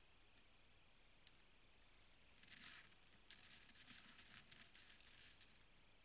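Faint crunching of a roe deer's hooves in snow as it takes a few steps: a short cluster of crunches, then after a brief pause a longer run of irregular crunches.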